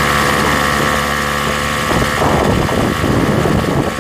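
Engine and road noise of a moving vehicle, heard from inside: a steady engine hum over a constant rush. The rumble turns rougher and more uneven about two seconds in.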